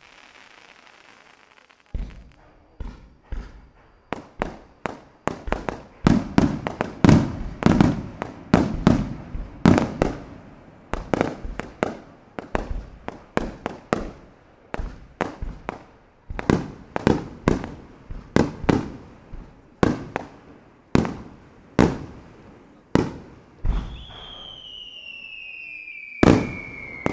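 Japanese aerial firework shells bursting one after another: dozens of sharp bangs, densest a few seconds in and then steady at about one a second. A soft hiss comes before the first bang, and near the end a long whistle slides down in pitch.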